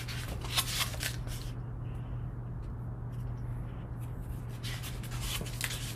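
Paper rustling as the pages of a picture book are handled and turned: a burst about half a second in and another near the end, over a steady low hum.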